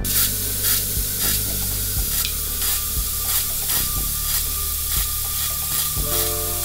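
Airbrush spraying paint in a steady hiss, over background music with a steady beat.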